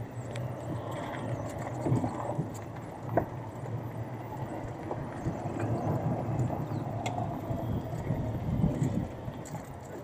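Rolling vehicle riding along a rough track: a steady low rumble with irregular knocks and rattles, loudest around two seconds and three seconds in.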